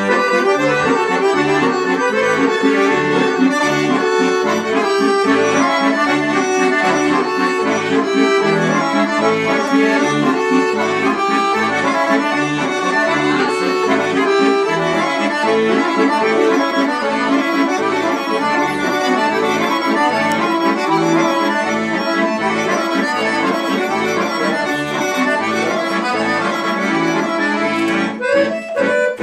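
Two chromatic button accordions, one a Dallapè, playing a tune together: a melody of many layered notes over a regular, pulsing bass beat.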